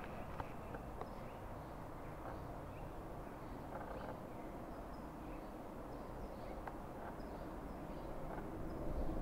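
A steady low rumble of distant engines that swells louder near the end, with small birds chirping faintly over it.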